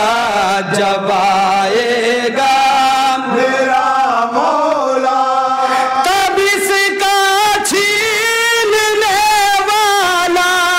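Group of men chanting an Urdu manqabat (devotional poem) together into a microphone, with long drawn-out notes. About six seconds in, the melody steps up to a higher pitch.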